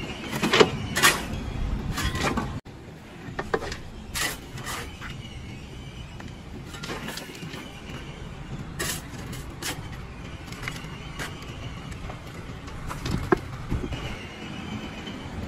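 A steel shovel scraping and digging into lumpy clay-soil and tipping it into a steel wheelbarrow: irregular sharp scrapes and knocks over a steady low rumble.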